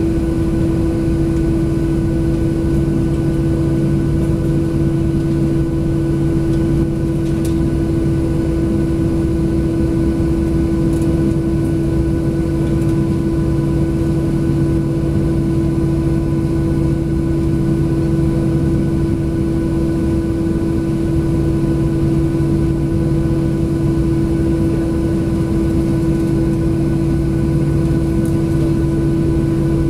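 Cabin noise of a Boeing 737-700 on the ground, its CFM56 engines idling: a steady rumble and hum with a few held tones.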